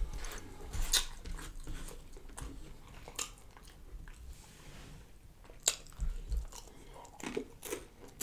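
Close-up chewing and wet mouth smacks of a person eating fried catfish fillet, with scattered sharp clicks, the clearest about a second in and just before six seconds.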